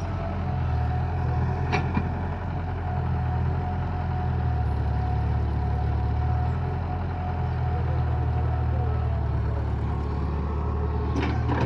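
Diesel engine of heavy farm or earth-moving machinery running steadily at low speed, with a sharp knock about two seconds in and a few clanks near the end.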